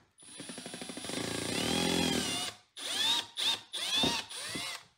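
Cordless drill running: one long run of about two and a half seconds whose pitch rises and then falls, then three short trigger pulses that each spin up.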